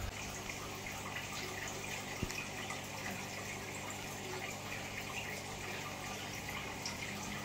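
Steady running water with a low electrical hum underneath, and a single faint click about two seconds in.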